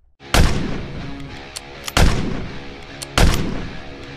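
Three loud shotgun blasts, added as sound effects: one just after the start, one about two seconds in and one just past three seconds, each with a short echoing tail. Background music plays underneath.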